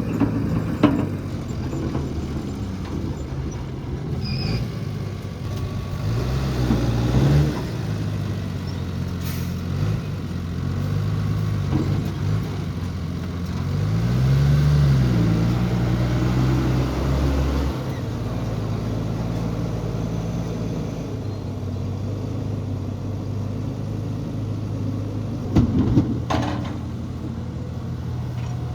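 Heavy diesel earthmoving machinery at work: an engine running steadily, its pitch rising and falling several times as if loaded and eased off, with a sharp knock near the start and a short cluster of knocks near the end.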